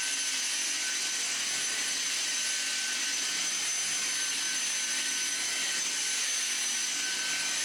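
Vacuum cleaner running steadily: a constant rushing hiss with a high, unchanging motor whine on top.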